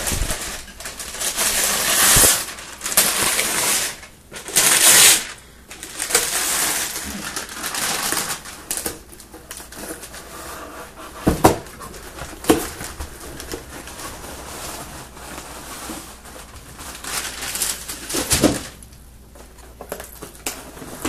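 Gift wrapping paper being torn and crumpled in loud bursts over the first several seconds, then quieter scratching and picking at the packing tape on a cardboard box, with a few sharp clicks.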